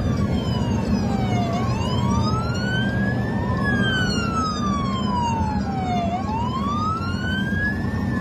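Police siren sounding a slow wail, its pitch sweeping up and down about every four and a half seconds, over the steady rumble of road noise from a car on the highway.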